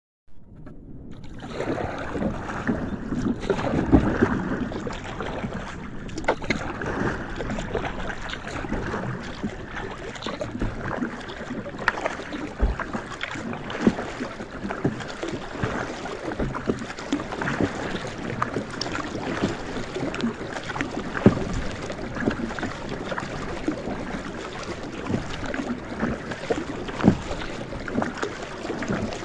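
Kayak moving through choppy water: water splashing and slapping irregularly against the hull at the bow, over a steady rush of water and wind on the microphone.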